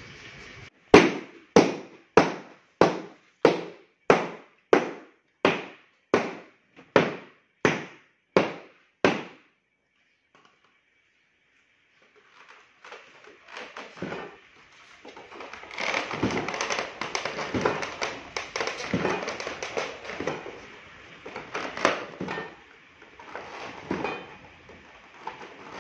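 About a dozen evenly spaced sharp knocks, roughly one and a half a second, each dying away quickly. After a short silence comes dense, irregular crackling and scraping as a hand tool pries and cuts cured fiberglass along the edge of a roof-tile mould.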